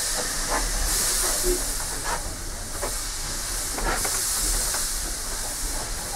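Steam railmotor No. 93 under way: a strong steam hiss swells and fades in waves every second or two. Several sharp knocks and rattles of the running train come through underneath.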